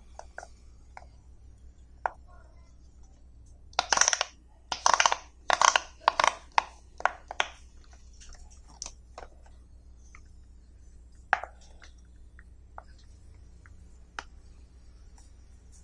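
Silicone pop-it fidget toy bubbles pressed by fingers: scattered soft pops and clicks, with a quick run of louder pops and handling noise from about four to seven and a half seconds in.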